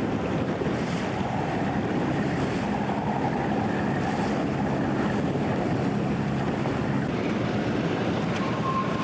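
Steady wind noise buffeting the camcorder's microphone, with a faint low steady hum underneath.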